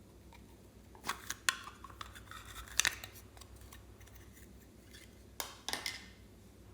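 Slime being handled, giving sharp crackles and clicks in two bursts, one about a second in and another near the end.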